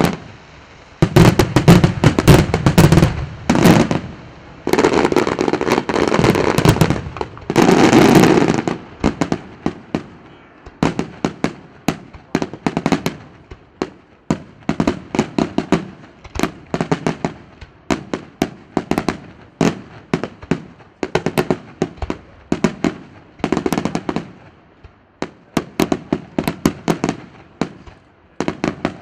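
Aerial fireworks show: for the first eight seconds or so, loud volleys of bangs run together, then they give way to rapid strings of sharp cracks and reports, several a second, coming in clusters.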